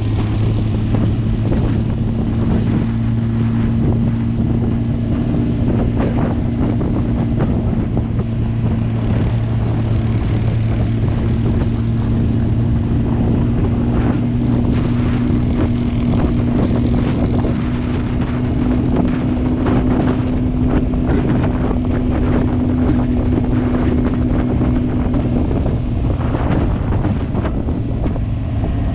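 Motorcycle engine running at a steady cruising speed, its hum holding one pitch, with wind rushing over the microphone. The engine note changes about 26 seconds in.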